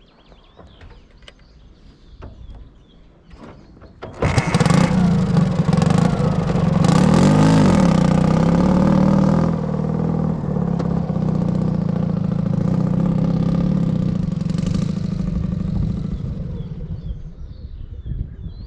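Dnepr MT-16 motorcycle's 650 cc flat-twin engine starting abruptly about four seconds in, revved up and back down once, then settling into steady running. Birds sing faintly before the engine starts.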